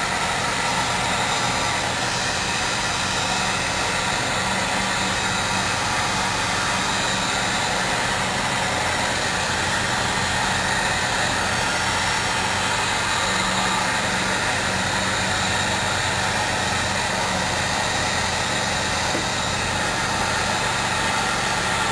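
Heat gun's fan motor running steadily with a rush of blown air, loosening the glue under a paper scroll-saw pattern so it can be peeled off.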